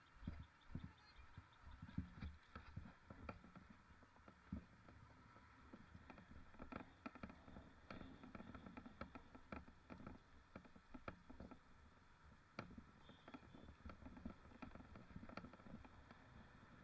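Faint, irregular rattles and clicks over a low rumble, typical of a mountain bike being ridden over rough ground.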